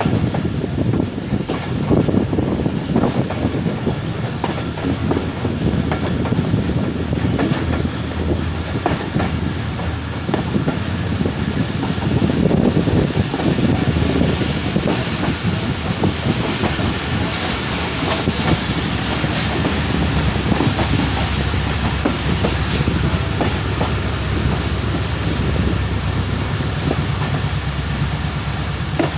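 Pakistan Express passenger train running along the line: a steady rumble with the repeated clatter of wheels over rail joints.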